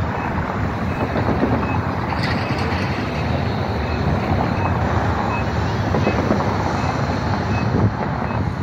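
Steady downtown traffic noise with wind rumbling on the microphone, and a faint short high beep repeating every second or so, like a vehicle's reversing alarm.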